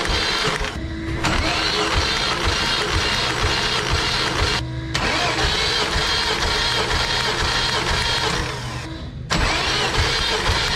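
V6 engine being cranked over on the starter without firing, for a compression test of each cylinder, in short runs broken by brief cuts about a second in, near the middle and near the end. Background music plays underneath.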